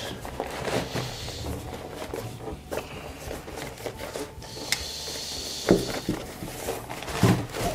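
A tripod being pulled out of its fabric travel case: the bag rustles and slides, with a few soft knocks and clicks as the metal tripod head is handled.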